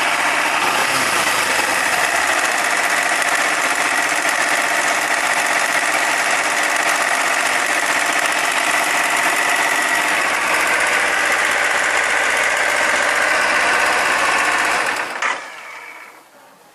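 Kawasaki Ninja 300's parallel-twin engine running steadily with a noise the owner finds strange and worrying, then cutting off suddenly near the end.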